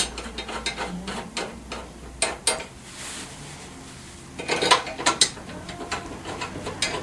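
Scattered small metal clicks and rattles of Allen bolts being handled and hand-started into a scooter's rear stand plate, with a short cluster of louder clicks about four and a half seconds in.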